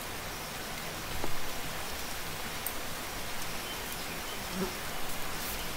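Steady background hiss from the recording, with a few faint clicks and no speech.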